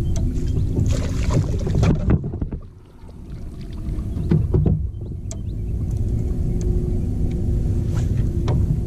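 Wind buffeting the microphone as a dense low rumble, dropping away briefly about two to three seconds in, with scattered clicks and knocks of fishing tackle on the kayak. A faint steady hum runs underneath and is clearest in the second half.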